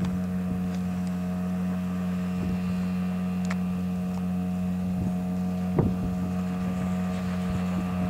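Small outboard motor on an open boat running at a steady speed across the lake, heard as an even, many-pitched hum. A brief knock comes about six seconds in.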